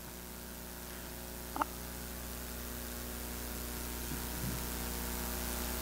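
Steady electrical mains hum from a microphone and sound system, a stack of even tones that grows slightly louder. A brief faint blip about one and a half seconds in.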